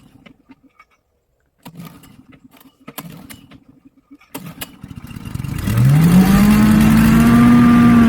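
Champion 3-inch chipper/shredder's small gasoline engine: a few scattered clicks and knocks, then about five seconds in the engine catches and its pitch rises quickly to a steady running speed. It is running again after being stripped to clear a jam of hardwood caught in the blades.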